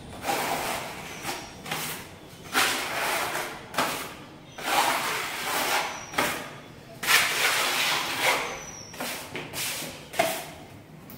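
Putty knife spreading wall putty across a plastered wall: a dozen or so scraping strokes, each about half a second to a second long, with short pauses between them.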